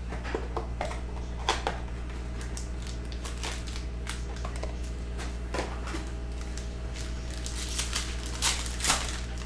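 A small cardboard trading-card box being opened and its foil-wrapped pack pulled out and torn open: scattered crinkles and clicks, the loudest about a second and a half in and twice near the end. A steady low hum runs underneath.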